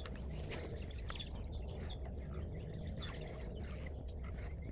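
Quiet outdoor ambience: a steady low rumble under a thin, steady high-pitched whine, with a few faint clicks.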